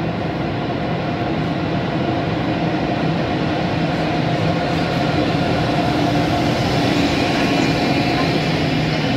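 DB class 101 electric locomotive hauling Intercity coaches rolling slowly into a station platform: an even rumble of wheels on rails with a steady electric hum, slowly getting louder as the train passes.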